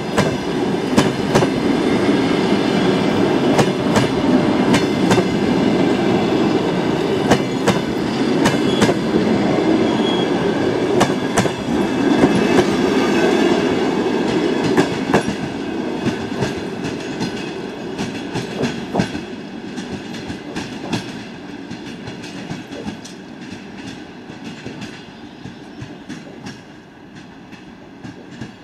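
Passenger train cars rolling past, their wheels clattering over the rail joints in irregular groups of clicks over a rumble. The clatter fades steadily through the second half as the train draws away.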